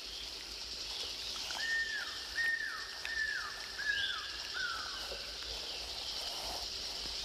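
Forest ambience: a steady high insect hiss, with a run of five short whistled calls, each falling in pitch, about two-thirds of a second apart.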